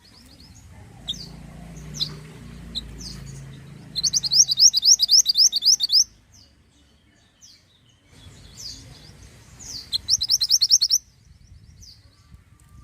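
Minivet singing: scattered single high chirps, then a fast trill of about ten sharp, loud notes a little after the start, repeated as a shorter run near the end.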